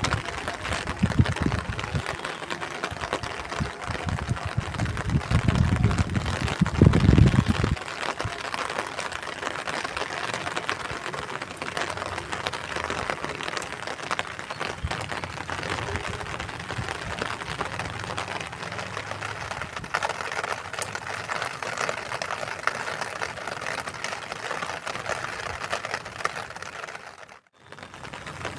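Steady rain falling: a continuous hiss with many small drop ticks. Low rumbling bursts come in the first eight seconds, loudest about seven seconds in, and the sound cuts out briefly near the end.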